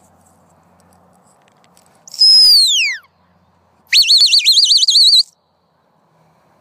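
Two herding whistle commands to a border collie working sheep: a long falling whistle, then a second whistle that rises and warbles rapidly.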